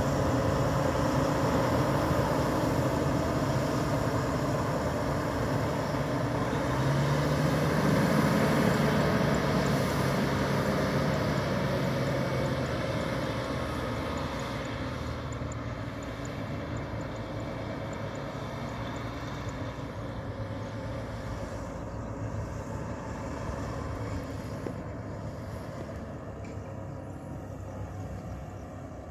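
Rosenbauer Panther airport crash tender's diesel engine running as the truck drives off, its note rising about a quarter of the way in and then gradually fading as it pulls away.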